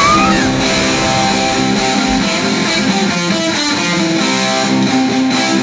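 Intro music: a rock song with strummed electric guitar, without vocals.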